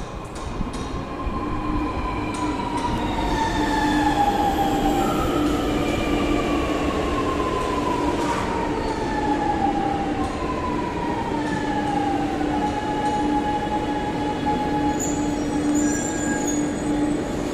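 Chennai Metro electric train braking into the platform: its traction motors give a whine that falls in pitch in several steps as the train slows, over a steady low hum and rail noise, then the whine levels out as the train stands.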